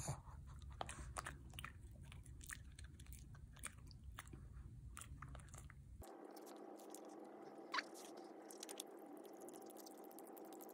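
Shih Tzu crunching and chewing a dog treat: a quick run of small crisp crunches that thins out after several seconds, with one sharper crunch later on.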